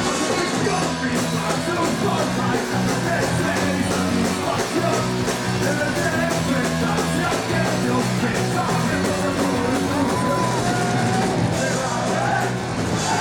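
Live ska band playing a fast song, loud, with a steady drum beat and a melody line over it near the end.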